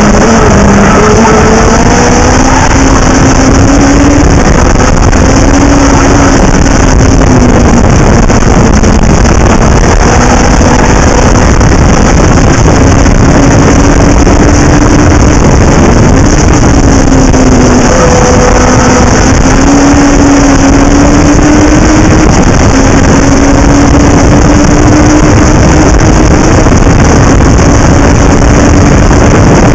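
Loud onboard sound of a Legend race car's Yamaha four-cylinder motorcycle engine at racing speed, its note dipping and climbing again several times as the driver lifts and accelerates through the corners, under heavy wind rush on the camera microphone.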